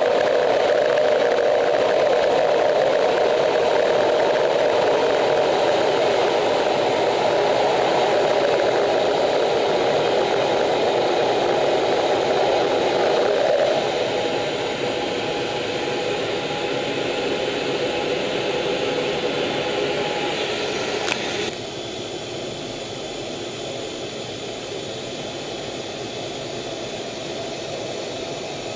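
Steady jet engine and rushing-air noise inside an F/A-18F Super Hornet's cockpit, from its twin turbofans and airflow over the canopy. The level steps down about halfway through and again more sharply about three quarters of the way in.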